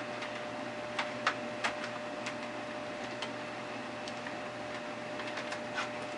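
Scattered light clicks and taps, irregularly spaced, from a keyboard and its cable being handled and plugged into the Macintosh SE/30. Under them runs the steady hum of the running computer.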